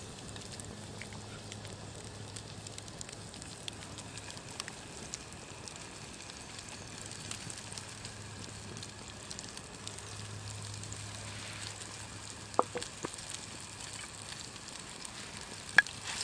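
Faint steady crackling and sizzling from a campfire and the hot oil in a stone bowl set over its coals, with a few sharper clicks near the end.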